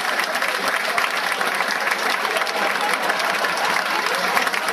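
Audience applauding steadily: dense, even clapping from a crowd after a live song.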